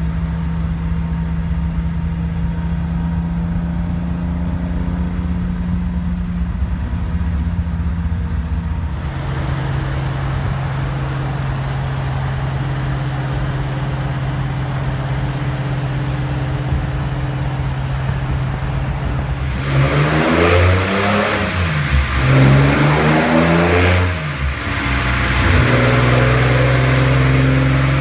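1973 Nissan Skyline Kenmeri's straight-six engine, first holding a steady cruising drone at about 3000 rpm, then running steadily as the car drives past. About twenty seconds in it is revved up and down several times, louder, and then held at a higher steady rev.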